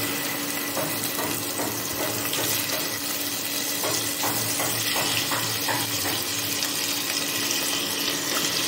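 Fish pieces sizzling in hot oil in a saucepan, a steady even frying hiss, with a few faint crackles around the middle and a steady low hum underneath.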